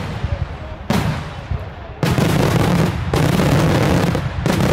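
Daytime fireworks: aerial shells bursting in sharp bangs about once a second, each followed by a rumbling tail. From about two seconds in, the bursts run together into one continuous loud rumble.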